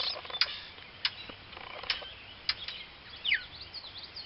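Brown thrashers giving repeated sharp, clicking alarm notes, irregularly spaced about half a second to a second apart, with a falling whistled call about three seconds in.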